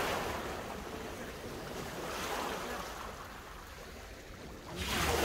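Small sea waves breaking and washing up a shingle beach, the hiss swelling at the start, again around two seconds in, and near the end.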